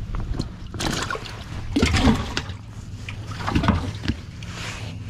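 Water splashing and sloshing in four short bursts over a steady low hum from the bass boat's motor.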